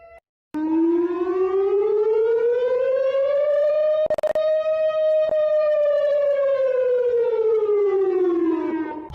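Civil-defense-style warning siren in an emergency alert, sounding one long wail: it starts about half a second in, rises in pitch for about three seconds, holds, then falls away near the end. A short crackle cuts through it about four seconds in.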